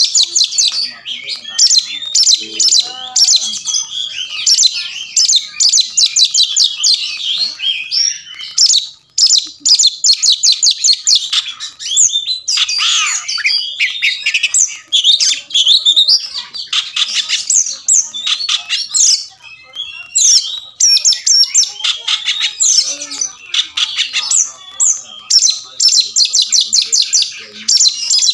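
Oriental magpie-robin (kacer) in full song: a loud, varied run of fast trills, quickly repeated notes and rapid rising and falling phrases, with hardly a pause.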